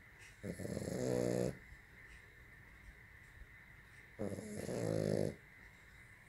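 French bulldog snoring: two snores, each about a second long and growing louder before stopping abruptly, about four seconds apart.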